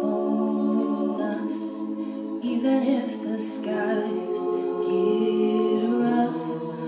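An all-female a cappella group singing held chords in close harmony, moving to a new chord every second or two, with a lower part dropping near the end.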